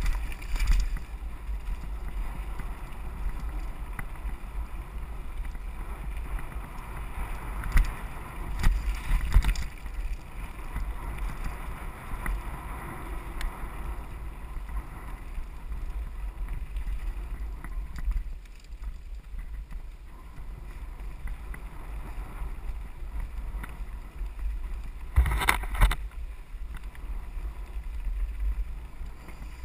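Mountain bike rolling fast over a rough dirt and rock singletrack: a steady rumble and rattle of the bike over the ground with wind buffeting the microphone, and a few louder jolts, one about a third of the way in and another near the end.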